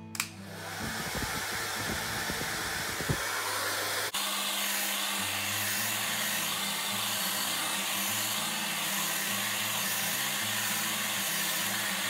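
CREATE ION YURE DORA-FV hair dryer switched on with a click and running steadily, its nozzle set to swing side to side. The blowing briefly dips about four seconds in.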